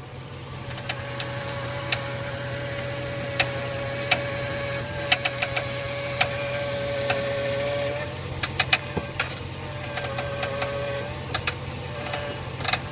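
Irregular creaks and clicks from the steering and front suspension of a 2002 Jeep Grand Cherokee with a 4-inch lift as the wheel is turned to the left, over the engine idling. A steady whine runs along and breaks up about eight seconds in. The cause of the creaking is unknown.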